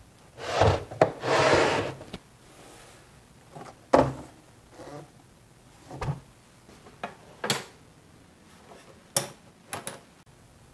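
A router bit's shank rubbing as it is pushed into a foam insert. Then about five sharp knocks and clicks, a second or two apart, as wooden cabinet doors are swung shut.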